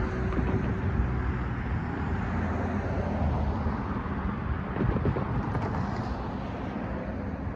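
Road traffic: cars and pickup trucks driving over a railroad crossing, a steady tyre and engine rumble.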